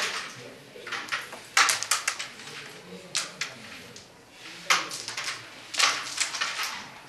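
Wooden carrom striker and coins clacking: sharp clicks as the pieces knock into each other and the board's frame, in several short clusters.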